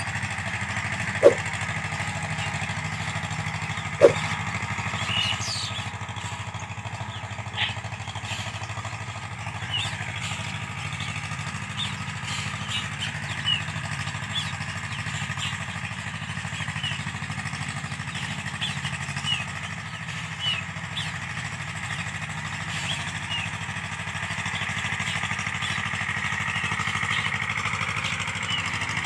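Escort 335 tractor's diesel engine running steadily under load as it pulls a cultivator through the soil, with many short high chirps over it. Two sharp clicks stand out, about one and four seconds in.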